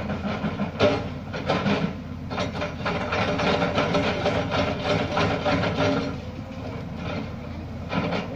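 Lonking excavator's engine running as its bucket works loose rock, with the clatter and scrape of stones: a few sharp knocks in the first two seconds, dense clattering through the middle, easing off for the last couple of seconds.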